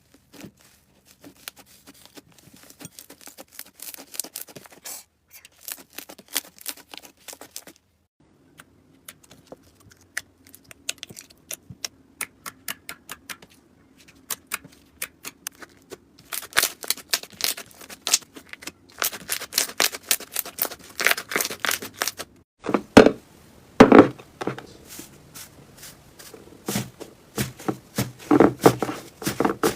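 Slime being squeezed and poked, giving quick crackling clicks and pops. The clicks are sparse at first, then come thick and loud from about halfway through, with a few heavier hits in the last third.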